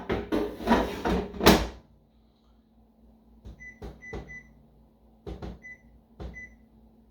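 Air fryer basket drawer clattering and clunking as it is pushed shut. Then about five short high beeps from the air fryer's control panel as its buttons are pressed, setting it to 400 degrees for 12 minutes.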